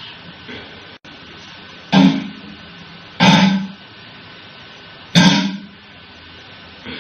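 Guitar chords struck one at a time, each ringing and fading within about half a second; three loud strokes come about two, three and five seconds in.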